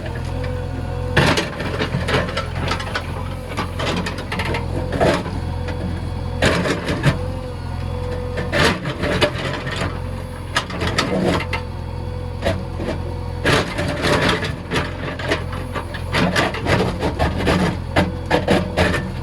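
JCB backhoe loader's diesel engine running steadily, with repeated irregular scraping and knocking from the machine at work.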